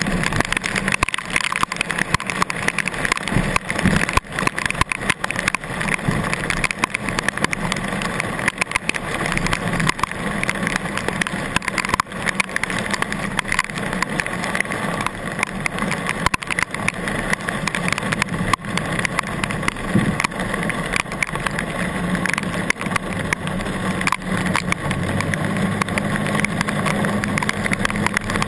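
Steady rush of heavy rain and running floodwater, thick with small crackles, over a low engine hum that grows steadier in the last few seconds.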